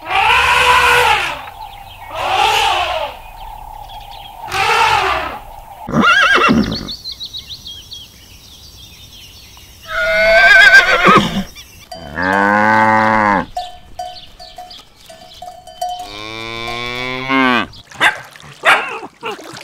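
A run of animal calls: an elephant trumpeting three times, horses whinnying with a quavering call, two long low lowing calls, then a dog barking in short bursts near the end.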